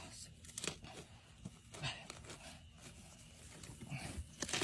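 Scattered short scrapes and rustles of digging in mud to free a fish, coming irregularly.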